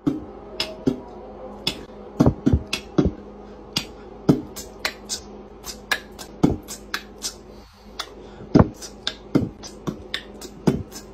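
Irregular sharp clicks and taps, with several heavier knocks among them, over a faint steady hum.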